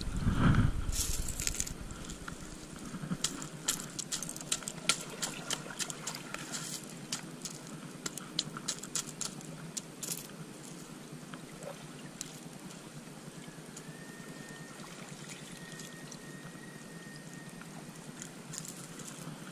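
Stream water running steadily over rocks, with a knock about half a second in and scattered sharp clicks and taps through the first half. A faint thin whistle-like tone runs for a few seconds past the middle.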